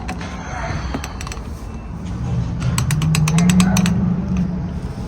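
Gas pump nozzle and handle clicking and rattling in a quick run about two and a half seconds in, over a low hum that swells and fades. This is the end of a fill-up, as the pump stops at the prepaid amount.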